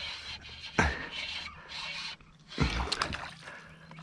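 Water splashing from a small hooked fish being played and landed beside a kayak, with two dull knocks, one about a second in and one past the middle.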